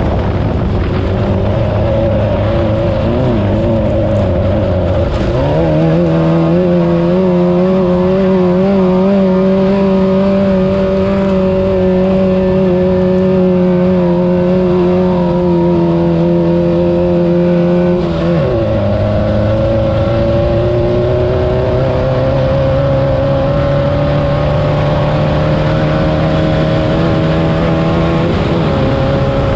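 VW-powered Class 9 off-road race buggy engine running hard at speed. Its note rises about five seconds in and holds steady, drops suddenly at about eighteen seconds as it shifts up, then climbs slowly and drops again near the end.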